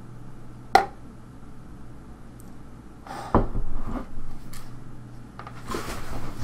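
Handling noises over a steady low hum: a sharp clink a little under a second in, then a thump and rustling a few seconds later, and more rustling near the end.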